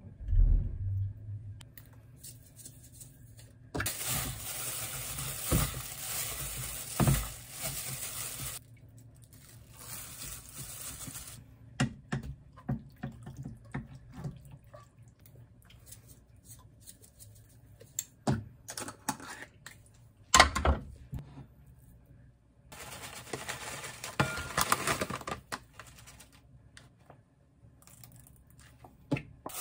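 Home food-prep sounds in several short takes. Stretches of steady hiss like running or poured water alternate with a wooden spoon scraping a saucy stir-fry out of a frying pan and sharp clinks of utensils on metal dishes and bowls.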